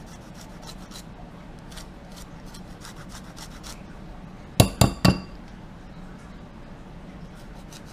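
Lime rind rasped on a metal hand grater, a run of quick light scraping strokes. About halfway through, three sharp clinks in quick succession as the grater is knocked against the bowl.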